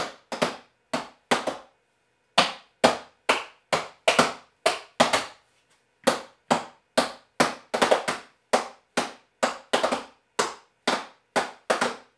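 Hands clapping and slapping in a steady rhythm, about two sharp smacks a second with a few quick doubles. The rhythm stops briefly about two seconds in and again around five and a half seconds.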